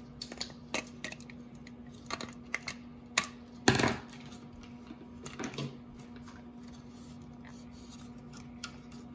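Scissors snipping through clear tape on a hard plastic toy house: a series of short sharp snips and crinkles in the first four seconds, the loudest near four seconds in, then a few softer plastic handling sounds.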